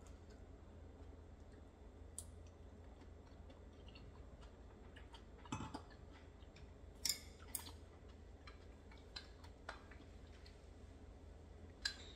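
Faint eating sounds over a low hum: scattered soft clicks and mouth noises from chopsticks and chewing. The sharpest clicks come about seven seconds in and again near the end.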